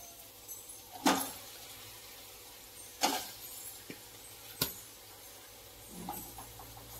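Pieces of marinated raw chicken dropped into a pan of hot onion-tomato masala: sudden wet slaps, each with a short sizzle, about every one and a half to two seconds, with a sharp metallic click among them and a softer one near the end.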